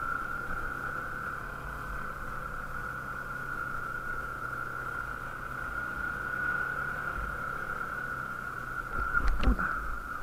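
Bajaj Pulsar motorcycle ridden slowly, its engine running low and steady under a steady high-pitched whine. A short cluster of knocks and a thump come near the end, the loudest sound.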